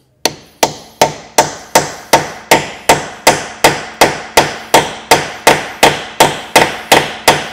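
Hammer striking an 18 mm socket to drive it over a stuck wheel nut whose metal cover slips: a steady run of about twenty strikes, about two and a half a second, each with a ringing tone.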